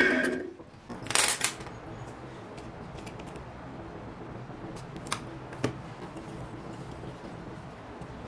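Bench drill press motor running with a steady hum, cut off about half a second in. A short cluster of sharp clicks follows after about a second, then light handling clicks over a low background.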